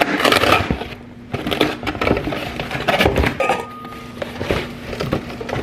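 Cardboard box and packaging of an acrylic dog bowl stand being handled and opened: repeated rustling and scraping with light knocks and clinks.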